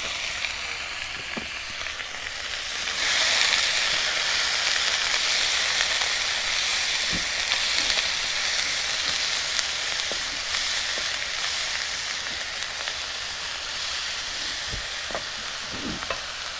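Sliced meat sizzling in oil in a frying pan, getting louder about three seconds in, with a few light taps of the fork and spatula as it is stirred.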